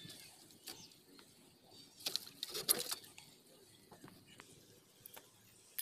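Crinkling and rustling of plastic as a homemade nail slingshot, made from a bottle neck, is handled and loaded, with a few light clicks. The loudest crinkling comes about two seconds in and lasts about a second.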